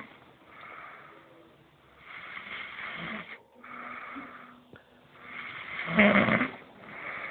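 A young man snoring in his sleep, several snoring breaths in a row, the loudest coming about six seconds in.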